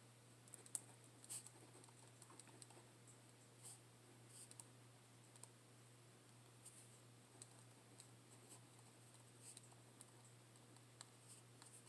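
Near silence with faint, irregular clicks and ticks of a person writing a journal entry, over a steady low hum.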